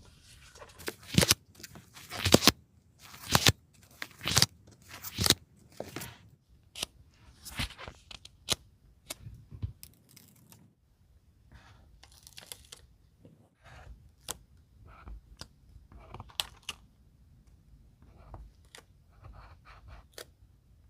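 Paper stickers being peeled off their backing sheet: a run of short, sharp ripping sounds about one a second for the first few seconds, then softer clicks and paper rustles for the rest.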